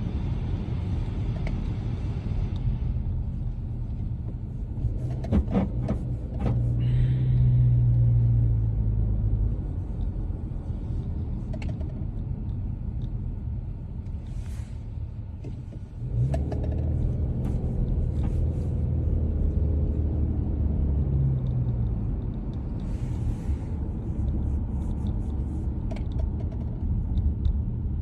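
A 2022 Subaru Legacy driving with a steady low road rumble. Clusters of short sharp knocks come as it goes over bumps, about five seconds in, around sixteen seconds and near the end. This is the unwanted noise over bumps that the owner is showing.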